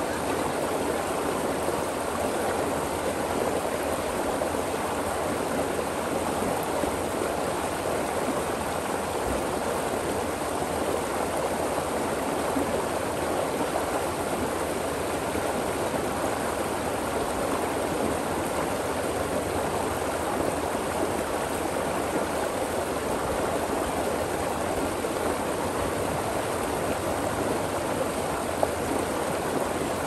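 Stream water running over and between rocks, a steady rushing sound. A single brief tick stands out near the end.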